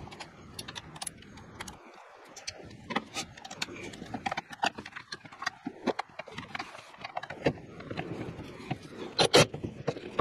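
Quick metallic clicks and clinks of wrenches and a cordless ratchet being handled at a truck's brake master cylinder, sped up, with a brief louder burst near the end.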